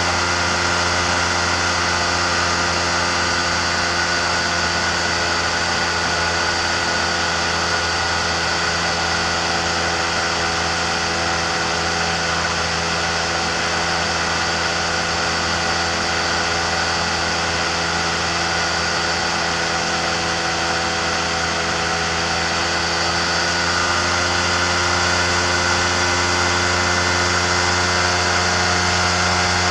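The pusher engine and propeller of a Ramphos amphibious microlight trike running steadily in flight, with a constant drone of engine tones over a rush of air. It gets slightly louder near the end.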